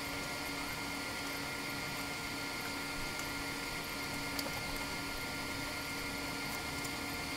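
Steady, fairly quiet background hiss with a few faint steady tones and an occasional faint tick; no distinct event.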